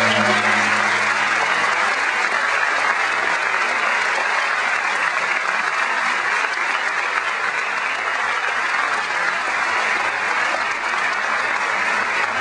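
Audience applauding steadily at the end of a song. The song's final low note dies away in the first second.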